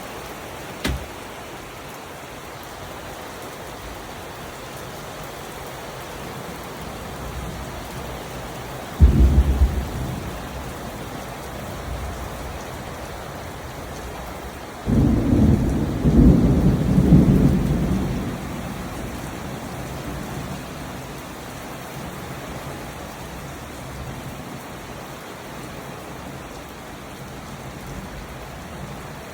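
Steady rain with thunder: a sudden peal of thunder about nine seconds in, lasting about a second, and a longer, louder rumble of thunder with several peaks about halfway through. A single sharp click sounds just before the first second.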